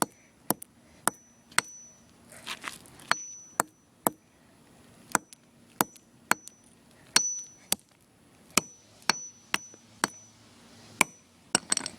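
Hammer blows striking a plastic iPod charger: about eighteen sharp, separate strikes at an irregular pace, sometimes two a second, many followed by a short high ring.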